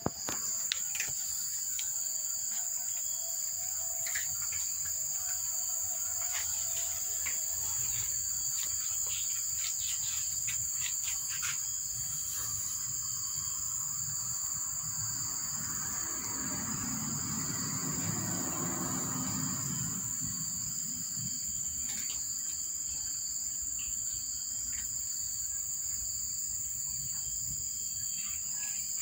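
Steady high-pitched drone of insects, with scattered faint clicks in the first half and a low rushing sound that swells and fades about two-thirds of the way through.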